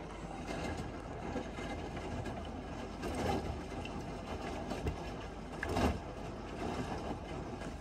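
Beko B3W5942IW washing machine in its final rinse: the drum turning the wet load so the water sloshes over a steady low hum, with louder swishes about three and six seconds in.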